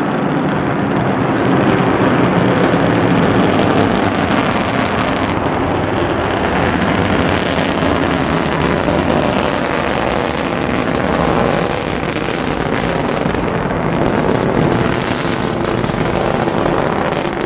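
Soyuz launch vehicle's rocket engines at full thrust, heard from about 2 km away: a loud, continuous rumbling noise laced with rapid crackling.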